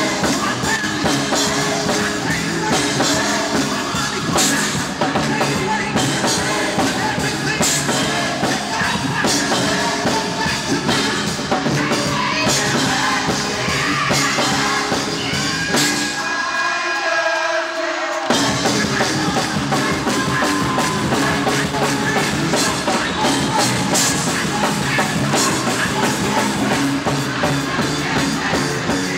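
Live gospel choir and band performing, with drum kit and singing. For about two seconds past the middle, the bass and drums drop out and only a few held notes remain before the full band comes back in.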